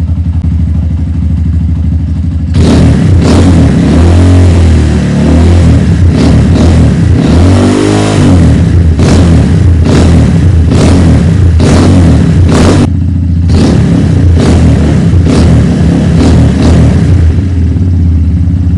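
Rusi Mojo 200 motorcycle engine idling, then revved repeatedly from about two and a half seconds in, with many sharp cracks through the exhaust, before settling back to idle near the end. It runs again now that the stale gasoline has been drained from the carburetor and replaced with fresh fuel.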